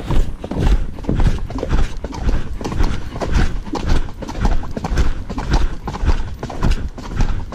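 A horse's hooves striking a dirt forest track at a brisk pace, in a steady rhythm of about two beats a second.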